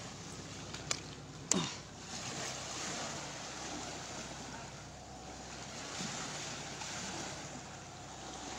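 Sea water washing against the boats and wind on the microphone, with a faint low hum under it. A sharp knock comes about a second and a half in.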